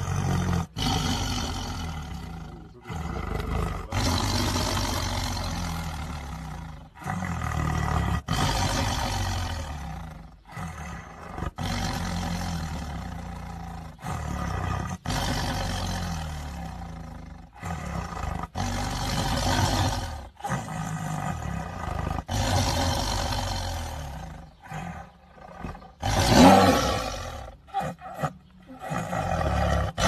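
Tiger roaring again and again: a string of long, deep calls a few seconds each with short breaks between them, the loudest one near the end.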